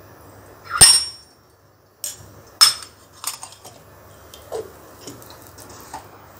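A steel spoon clinking against a nonstick frying pan while ghee is tapped off it: two sharp, ringing clinks about a second in and near three seconds in, then a few lighter knocks.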